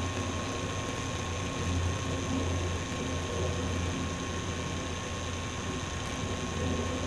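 Camcorder's own mechanism noise: a steady, slightly wavering low hum with a thin high-pitched whine and hiss, and no distinct events.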